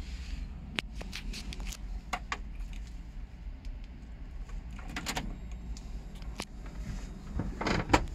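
Scattered sharp clicks and a light jangle of keys in the cabin of a Lotus Elise with the engine off, ending in a louder clatter near the end as the ignition key is turned on.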